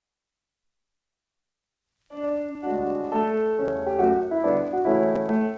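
Dead silence, then about two seconds in a 78 rpm record recording starts playing: a piano introduction to a song, with a few sharp surface clicks from the disc.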